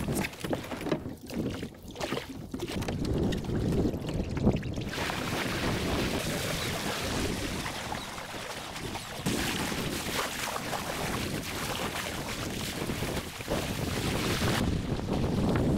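Wind buffeting the microphone over the rush and splash of water along a small sailing boat's hull under way. The noise changes abruptly a few times.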